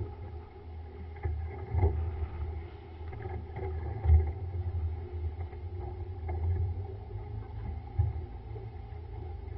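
Steady hum of a boat's Mercury outboard motors running, under a gusty low wind rumble on the microphone, with a few dull thumps on the boat.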